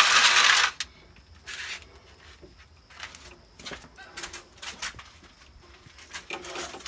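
Metal baking tray scraping across the brick floor of a wood-fired oven as it is pushed in, stopping within the first second; then a few faint scattered knocks and rustles.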